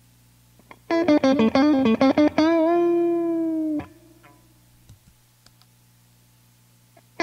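Electric guitar played through a Hubcap John Beano, a Rangemaster-style treble booster, on its mids-boost setting. About a second in comes a quick run of single notes, ending on one held note that is cut off sharply a few seconds in. After that only faint clicks are heard over a low amp hum.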